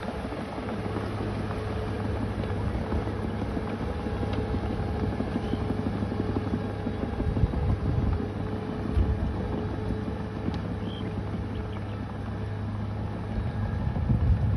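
Bulldozer's diesel engine running steadily under work, with a few louder low surges.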